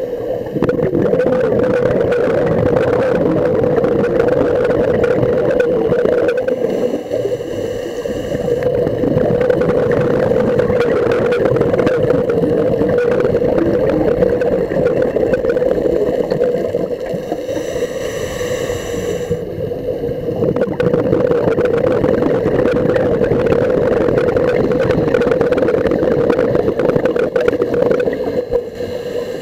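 Steady underwater drone picked up by a diving camera: a constant hum over a noisy wash, changing slightly about every ten seconds.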